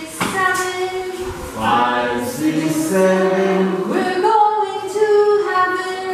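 A class of young children singing a counting song together, unaccompanied, in held notes.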